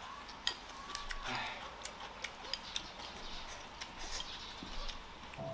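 Chopsticks clicking against the rim of a bowl while someone scoops food and eats, a scattering of light, irregular ticks.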